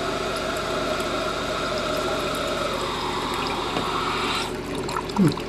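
Korky universal toilet fill valve refilling the tank: water hissing in, its tone dropping as the tank nears full, then the valve shutting off fairly abruptly about four and a half seconds in. Near the end comes a brief sound that falls in pitch.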